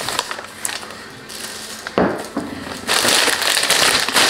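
Plastic shopping bag being handled: a few light crinkles and clicks at first, then loud continuous rustling and crinkling from about three seconds in as the bag is dug through.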